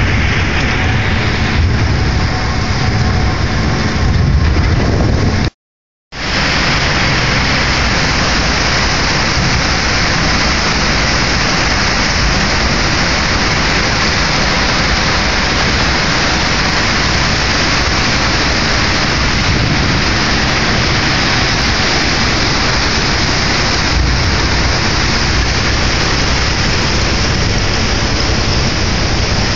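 The Madeline Island ferry pushing through broken Lake Superior pan ice: a steady, loud rushing wash of ice and water along the hull, with the ferry's engine rumbling underneath. The sound drops out completely for about half a second a little over five seconds in.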